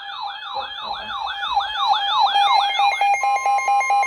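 Weather alert radio's electronic siren alarm sounding for a new warning: quick repeated whooping sweeps over a steady tone, switching about three seconds in to rapid pulsed beeping.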